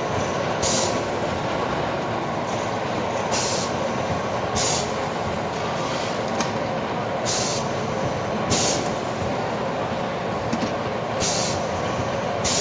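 Cookie depositing machine running: a steady mechanical din with short hisses that come in pairs about a second apart, a pair roughly every four seconds, as it works through its depositing cycle.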